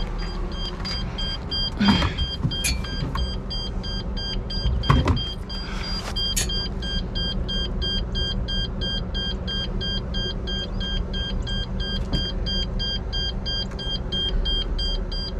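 A salvaged electronic gadget beeping without stop, a rapid even run of high two-tone beeps, because its button has been pressed and it will not shut off. Two knocks about two and five seconds in, over a low steady rumble.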